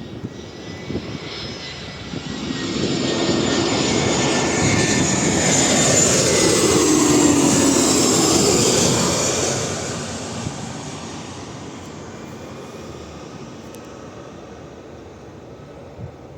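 Landing airliner's engines passing close by: the sound builds, is loudest about four to nine seconds in with a drop in pitch as it goes past, then fades away.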